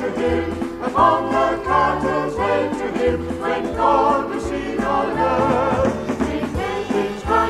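Vocal group singing a gospel song with instrumental backing, over a steady bass line that changes note about every half second.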